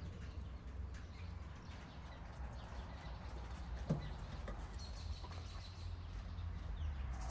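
Outdoor ambience: a steady low rumble with a faint bird chirp, and a single sharp knock about four seconds in.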